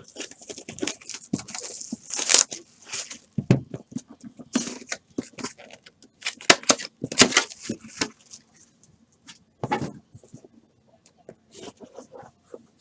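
A sealed cardboard trading-card box being opened by hand: its wrapper torn and crinkled off, then the box slid from its sleeve and handled. The sounds come as irregular rustles, taps and scrapes, busiest in the first half.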